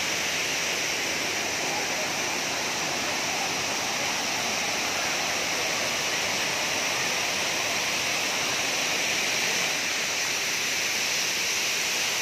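Steady rush of water from a wide, tiered waterfall and the fast, swollen river below it.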